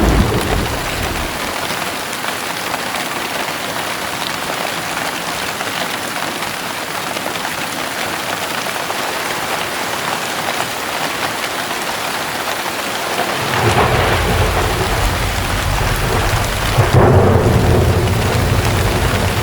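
Heavy rain pouring steadily, with a short thunderclap right at the start. About two-thirds of the way through, a long, deep roll of thunder begins and swells near the end.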